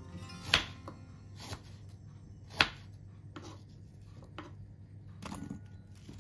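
Kitchen knife cutting through fruit into a cutting board: about half a dozen sharp knocks at irregular intervals, the loudest about two and a half seconds in.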